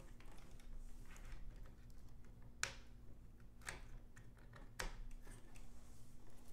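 Three sharp plastic clicks about a second apart, with lighter ticks between them, from cable connectors being handled and pressed onto the motherboard of an open-frame GPU mining rig.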